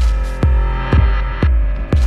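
Background music with a steady beat: a deep thump about twice a second over held tones.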